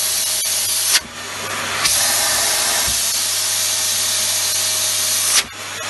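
Dyson DC39 canister vacuum cleaner running, with a steady motor hum under loud air rushing through the hose. About a second in, and again near the end, the rushing drops off sharply after a brief peak, then builds back up. It is pulling strong suction again now that the blockage has been cleared.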